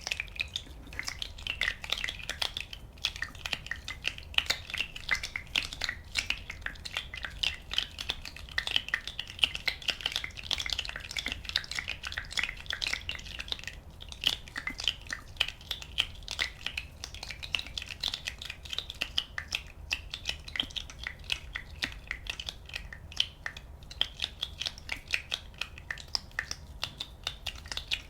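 Many small bubbles popping in a dense, continuous crackle of tiny pops, close to the microphone.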